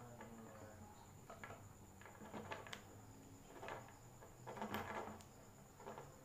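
Faint rustling and small clicks of thin electrical wires and small electronic parts being handled and twisted together by hand, in short scattered bursts.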